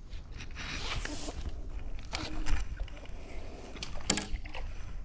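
Close handling noise of fishing gear: rustling and scraping as a hand line and landing net are worked, with short sharp knocks about two seconds and four seconds in, over a low steady rumble.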